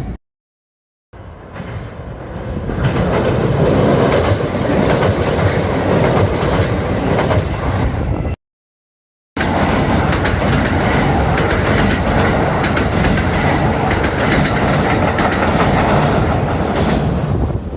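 Kintetsu electric train passing at speed, its wheels clattering over the rail joints. The sound swells over the first couple of seconds. It drops out to dead silence for about a second twice, near the start and about eight seconds in, then carries on at full strength.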